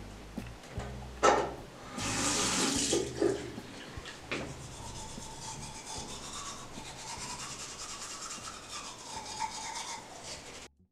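Bathroom sink tap running into the basin, with rubbing at the sink and a sharp knock about a second in. The sound cuts off just before the end.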